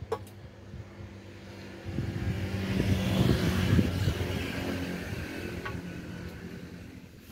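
A motor vehicle passing by: its engine noise swells from about two seconds in, is loudest around three to four seconds, then fades away. A single sharp click right at the start.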